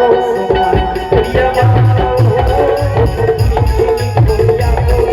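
Chhattisgarhi folk song music: a wavering melody over drums and light percussion. The low drum beats come in strongly about a second and a half in.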